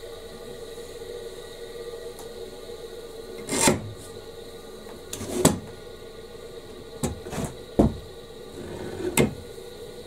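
Bar clamps being handled and set on a wooden workbench: about six scattered knocks and clanks of the clamps against the bench, over a steady background hum.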